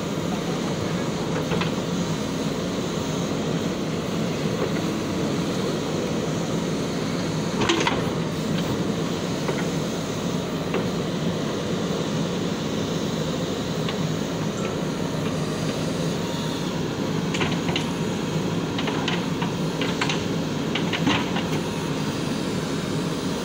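Backhoe loader's diesel engine running steadily under load while the bucket digs, with occasional sharp clanks: the loudest about eight seconds in and a few more close together near the end.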